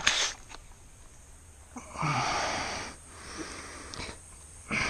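A man's breathy, strained breaths of pain, twice: one about two seconds in, starting with a short low grunt, and another near the end. A fish hook's barb has gone deep into his finger.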